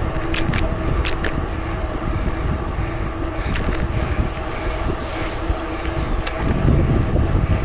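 Surly bicycle being ridden along a trail: steady tyre rumble with a constant hum and scattered sharp clicks and rattles. The rumble grows louder about six seconds in.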